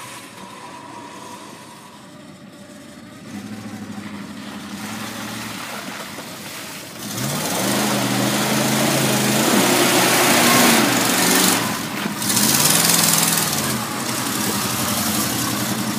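Full-size pickup truck's engine revving hard as the truck churns through deep mud, with tyres spinning and flinging mud. The revs climb about seven seconds in and again about twelve seconds in, then hold steady as the truck drives on.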